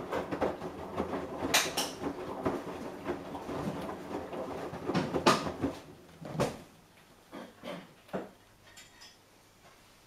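Samsung EcoBubble front-loading washing machine drum tumbling a wet load in its fast wash cycle, with a rumbling clatter and knocks as the laundry turns over. About two-thirds of the way in the tumbling stops, leaving a few separate knocks before it goes quiet.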